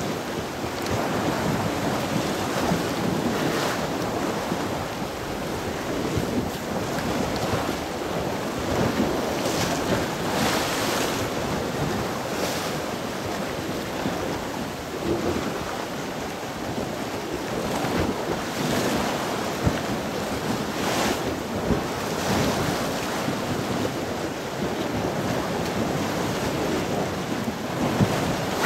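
Wind buffeting the microphone over choppy sea waves washing against the shore: a steady rushing noise with a few louder gusts.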